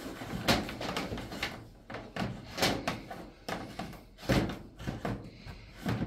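A string of irregular knocks and rattles as the power cord is pushed back into the storage compartment of a portable dishwasher, with two louder knocks near the middle.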